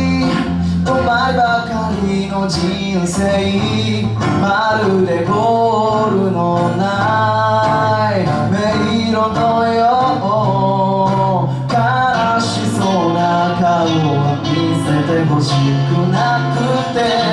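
Live band song: a male voice sings a melody over strummed acoustic guitar, electric guitar and bass, playing on without a break.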